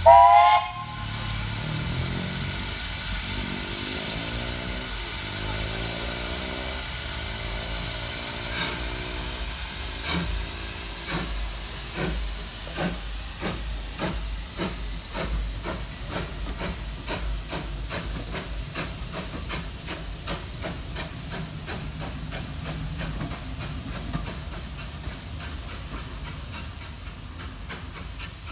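Steam whistle blast at the start. Then the LB&SCR 'Terrier' tank engine 'Fenchurch' pulls away with its GWR coaches, hissing steam, its exhaust chuffs quickening as the train gathers speed and fading slightly as it draws off.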